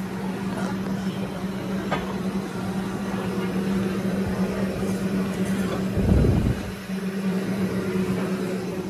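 A steady low hum with faint room chatter behind it, and one dull low thump about six seconds in.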